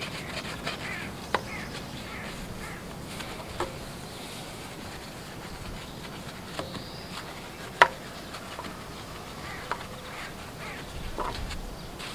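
Small detailing brush scrubbing a foam-covered alloy wheel: a soft, steady bristle swishing, broken by a few sharp clicks where the brush knocks the rim, the loudest about eight seconds in.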